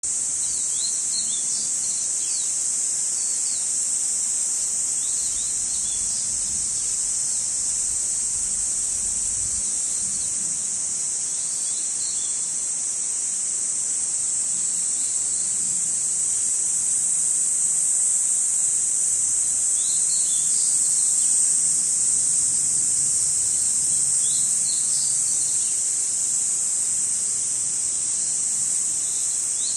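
Cicadas in a continuous, high-pitched, unbroken drone, with short bird chirps now and then.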